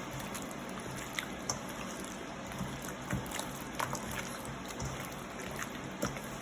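Wet, sticky squelching with scattered small clicks as chicken wings are mixed in a thick flour-and-spice marinade.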